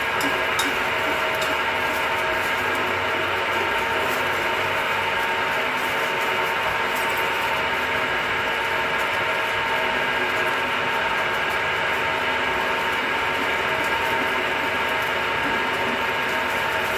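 Milling machine running steadily under load as a 40 mm drill bit cuts a large hole, a constant machine hum with several steady whining tones. The drill is unevenly sharpened, biting more on one cutting edge.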